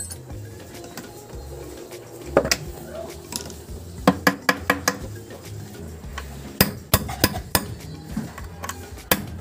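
Hand tools clinking and tapping against a manual transmission case and its gear-selector linkage, in sharp metallic clicks: one about two seconds in, a quick run of them around four seconds in and another around seven seconds.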